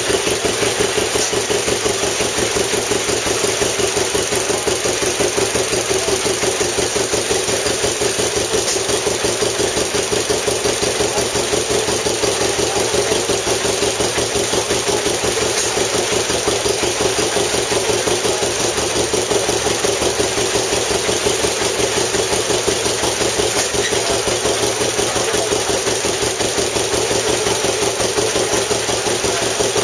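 Antique stationary gas engine, wagon-mounted, running steadily with a rapid, even beat.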